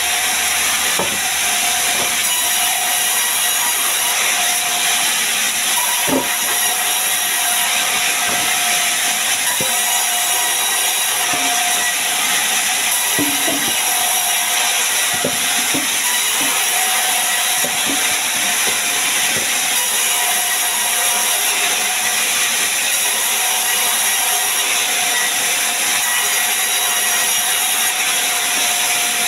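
Large sawmill band saw running and cutting timber: a steady, high-pitched hiss with a constant tone under it, broken by a few short knocks.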